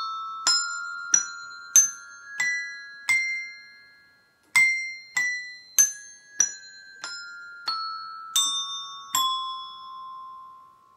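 Set of tuned desk bells tapped one note at a time, playing a hijaz scale: the notes climb to the top of the scale, pause briefly about four seconds in, then step back down. Each strike rings on, and the last low note is left ringing near the end.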